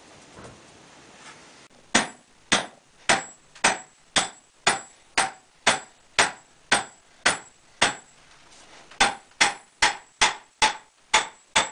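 Hammer blows on an upright hydraulic cylinder's piston rod, driving the gland down into the cylinder barrel: sharp metallic strikes with a short ring, about two a second starting about two seconds in, then after a brief pause a quicker run of strikes near the end.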